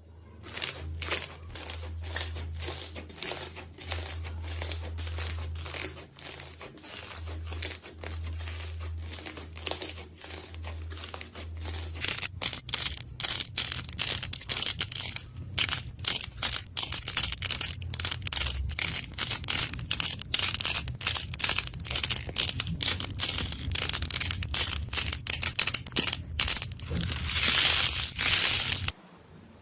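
Slime being squeezed and worked close to the microphone, with dense irregular crackling and popping. There is a low hum under the first part; about twelve seconds in, the crackling gets busier and louder, and it stops suddenly near the end.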